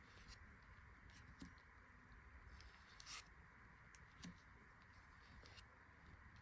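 Near silence with a few faint clicks and one short rustle about three seconds in, from trading cards and packaging being handled.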